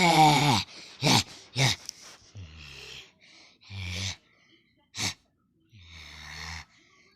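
A person making weird non-speech vocal noises: a held voiced sound that bends down in pitch and cuts off just after the start, then a string of short breathy gasps and low, raspy grunting sounds with gaps between them.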